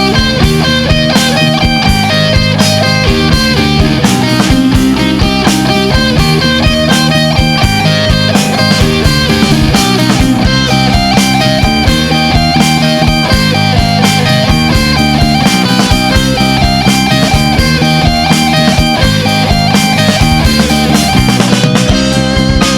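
Progressive rock music: electric guitar playing over a steady drum beat.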